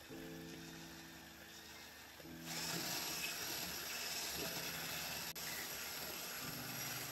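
Electric hand mixer running, its wire beaters whisking mascarpone cream and powdered sugar in a glass bowl: a steady motor hum with a whirring, swishing noise that gets louder about two and a half seconds in.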